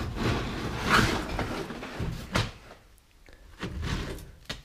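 Carpet being pulled up and dragged out of a pickup truck's cab floor: rustling and scraping with a few sharp knocks, quieter after about two and a half seconds.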